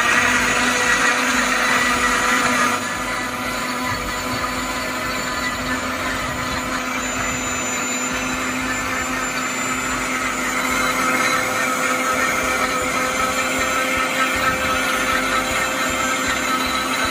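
Deepak Ganga 1100-watt mixer grinder running steadily, its motor blending pineapple pieces with milk and water in the juice jar, with a steady motor hum under the whirring. The level drops slightly about three seconds in.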